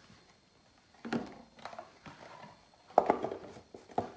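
Handling noise as a black, metal-cornered guitar-case-style watch box is taken out of its cardboard outer box and set on a wooden table: soft rustling and scraping, a sharp knock about three seconds in and a lighter knock a second later.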